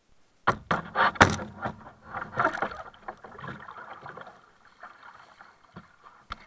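Sharp knocks and thumps on the plastic hull of a sit-on-top kayak, with water splashing, as the paddler climbs out into the shallows. A few more knocks come near the end.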